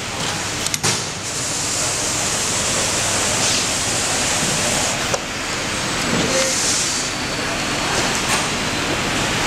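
CNC template sewing machine running, a steady mechanical din with a few sharp clicks and two stretches of brighter hiss.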